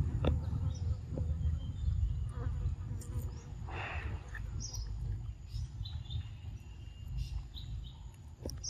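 A long-tailed macaque eating chunks of orange-fleshed fruit: a few small clicks and smacks, one a little longer about four seconds in, over a steady low rumble.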